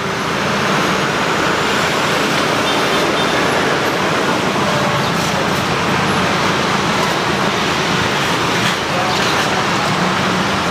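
Steady rushing roar of a gas stove burner under an aluminium cake mould pan, with a few light clicks.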